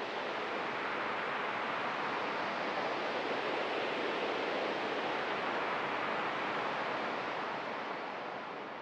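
Synthesized wind from the Serum 2 preset 'Wind's Howling': a steady noisy hiss, shaped by a chain of resonant EQ bands, easing off near the end.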